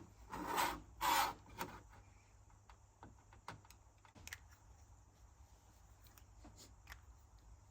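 Hands handling small parts and tools at a workbench: three short rubbing or rustling sounds in the first two seconds, then scattered light clicks and taps.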